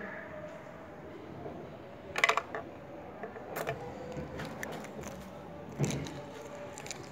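Motorcycle ignition key and its keychain jangling and clicking as a hand handles them, in a few short clusters; the loudest comes about two seconds in.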